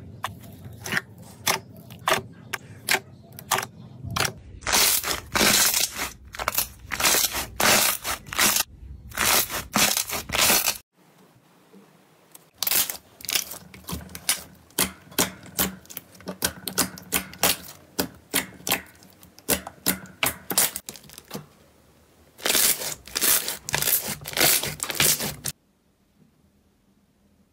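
Slime being pressed and kneaded by hand: quick runs of short sticky clicks and pops. The first run is from a blue foamy slime in a jar, then after a brief pause from a red glossy slime, and the sound stops near the end.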